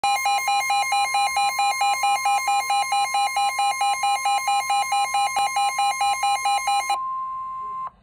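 Midland weather alert radio sounding its alarm for a severe thunderstorm warning: a fast beeping, about four to five beeps a second, over the steady high NOAA Weather Radio warning alarm tone. The beeping stops about seven seconds in, leaving the steady tone alone until it cuts off just before the end.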